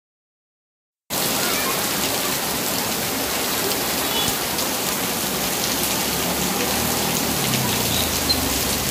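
Heavy rain pouring down, a steady dense hiss of rain striking the street, roofs and leaves, starting suddenly about a second in.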